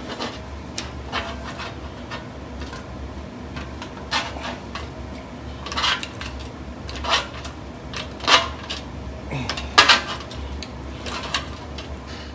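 Sheet steel being worked in a hand-operated metal shrinker and handled: scattered metallic clanks and clinks, about six sharper ones with a brief ring, over a low steady hum.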